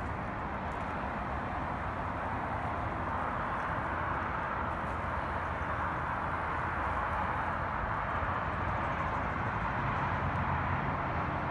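Steady background rumble of distant town traffic, with no distinct events and slowly growing louder.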